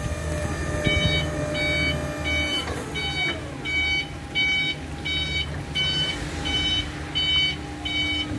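Reversing alarm on an IMOW 30B lithium-ion electric forklift, beeping about twice a second from about a second in over the truck's low hum. A whine falls in pitch about three seconds in.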